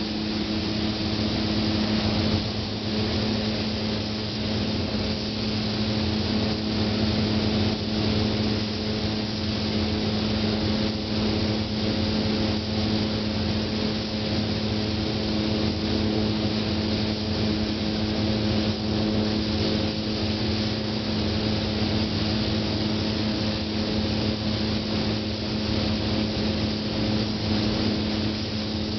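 Steady hiss of compressed-air paint spraying over a constant machine hum with a low drone, as clear coat is sprayed onto a car.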